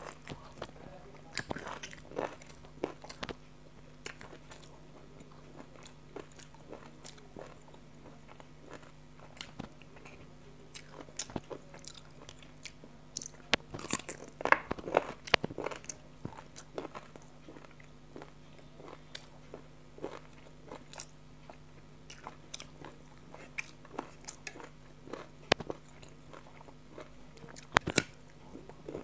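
Close-miked eating sounds: a person chewing and biting mouthfuls of chicken curry and rice eaten by hand, with scattered wet smacks and crunchy clicks. They are busiest about halfway through and again near the end.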